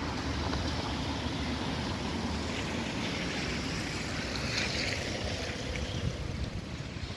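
Wind buffeting the microphone in a steady low rumble over outdoor road ambience, with a brief rise in hiss about halfway through.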